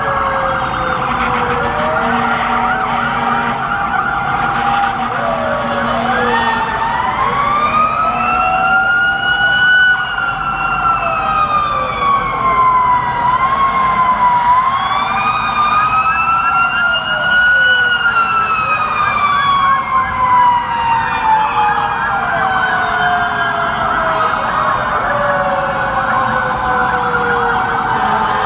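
Fire truck sirens stuck in heavy traffic: several sirens overlap, one in a slow wail that climbs and falls twice and another sliding down across most of the stretch, over a faster yelping siren and steady road noise.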